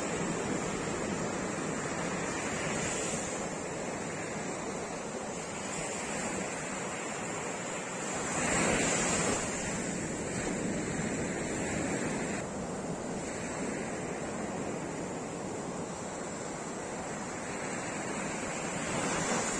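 Sea surf washing onto a sand beach, a steady rush of breaking waves with one louder surge about nine seconds in.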